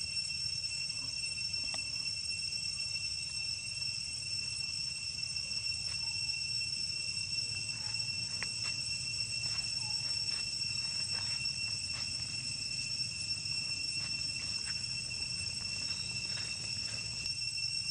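Steady, unbroken high-pitched drone of insects, with short faint clicks scattered through the middle.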